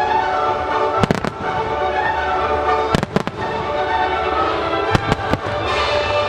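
Fireworks shells bursting in quick groups of two or three sharp bangs, about every two seconds, over music playing steadily; a hiss rises near the end.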